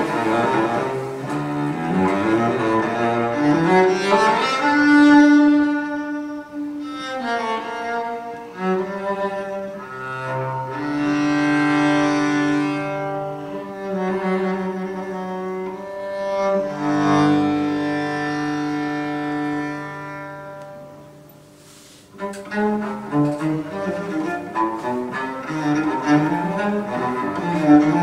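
Cello music played through Natural Sound 1 field coil loudspeakers, with 15-inch Maxonic field coil drivers and Maxonic compression tweeters. A quick passage gives way to long held notes, the music drops away briefly about 22 seconds in, then quicker playing comes back.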